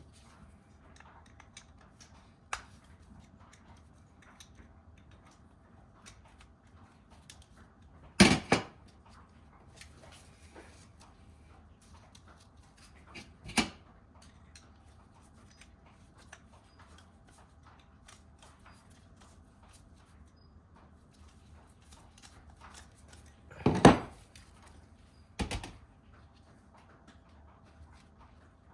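Metal tools and parts being handled: scattered light clicks and taps, with four sharp metallic clanks, the loudest about eight seconds in and near the end, over a faint steady hum.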